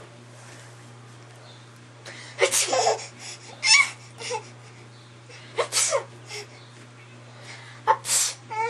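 An adult's mock sneezes ('achoo') and a baby's laughs and squeals, in about five short outbursts spaced a second or two apart.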